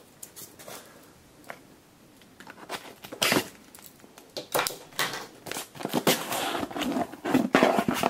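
Cardboard box being opened by hand: a few small clicks at first, then scattered clicks, scrapes and rustling of cardboard and packing that grow busier in the second half.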